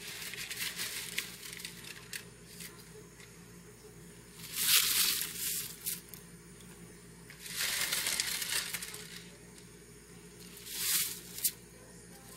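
Dry spaghetti noodles and their plastic pack being handled as they go into a pot of boiling water: four bursts of crinkling and crackling, with a sharp click near the end, over a steady low hum.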